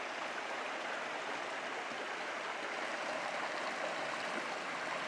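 Small rocky mountain brook running over stones: a steady, even rush of water.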